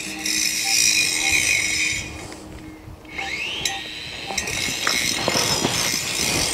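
A metal detector giving short beeps about every half second over a target, under a steady high hiss. About five seconds in, sharp crunching from a spade going into dry turf.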